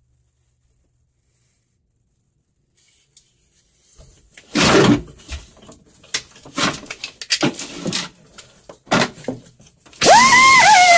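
Near silence at first, then a few seconds of irregular knocks and rustles. Near the end, music with a loud wavering, sliding lead tone starts suddenly.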